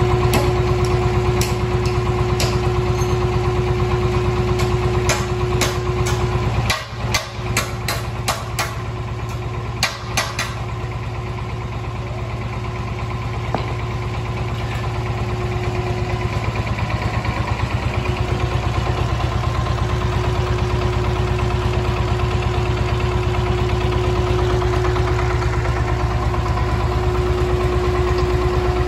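Single-cylinder Dongfeng diesel engine fitted to an asphalt cutter, running steadily with an even chugging beat. A few sharp metallic clicks come between about five and ten seconds in, and the engine sound dips briefly around seven seconds.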